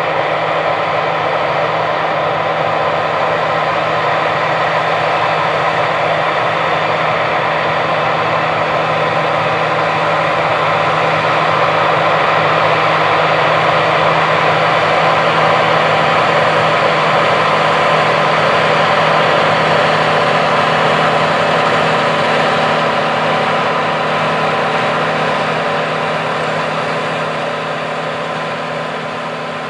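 Big Bud 16V-747's Detroit Diesel 16V-92 two-stroke diesel engine working under load, pulling a wide chisel plow. A steady, heavy drone that grows slightly louder over the first half, then fades away near the end.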